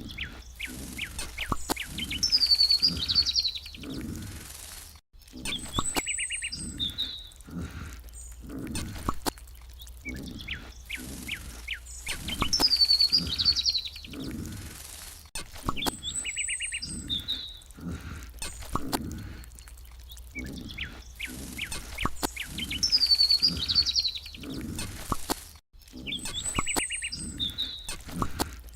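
Looped farmyard ambience: birds chirping over low animal grunts and a steady low hum. The same stretch repeats about every ten seconds.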